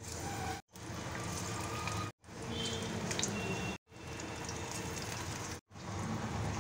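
Hot oil sizzling steadily as batter-coated slices of banana flower deep-fry in a kadai, broken by four brief silent gaps where the clip is cut.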